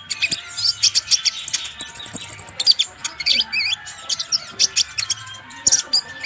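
Purple-throated sunbird (konin) singing a fast, varied song of high chirps and short trills in quick bursts, with a very high, thin trill about two seconds in.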